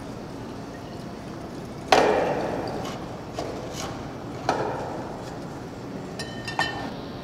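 A loud sharp knock with a ringing decay about two seconds in, a few lighter clicks, and a second knock about halfway through. A quick run of ringing, glassy-sounding clinks follows near the end, all over a steady background hiss.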